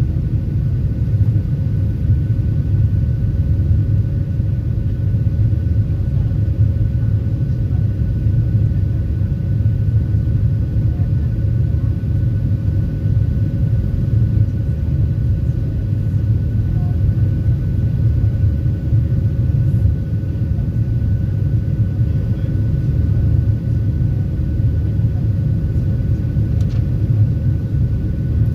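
Cabin noise inside a Boeing 737-700 on takeoff: a steady, loud low rumble from its CFM56-7B turbofan engines and the airflow, with a faint steady whine.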